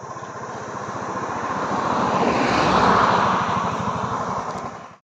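A motorcycle engine approaching and passing close by, swelling to a peak about three seconds in and then fading, before the sound cuts off suddenly.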